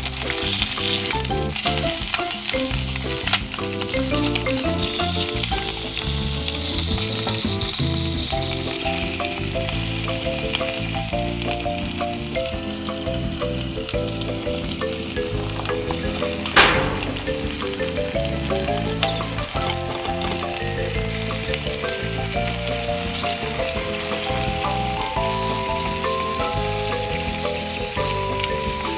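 Food sizzling as it fries in oil, with stirring, and one sharp knock a little past halfway through.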